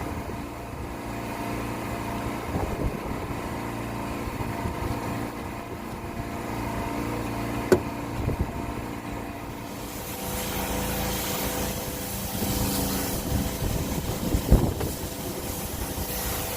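Electric pressure washer's pump motor running with a steady hum; about two-thirds of the way through, a hiss of spraying water joins it. Two sharp knocks come through, one near the middle and one near the end.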